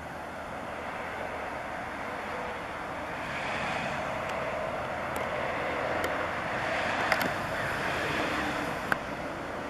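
North American beaver chewing bark and wood from peeled sticks: a crunching that grows louder a few seconds in, with a few sharp clicks, over a steady rushing background noise.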